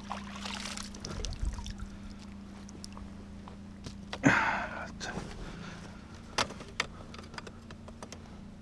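Water pouring off a rubber-mesh landing net as a netted trout is lifted from the pond. About four seconds in, a loud knock with a short rustle as the net comes down on the bank, followed by a few small clicks.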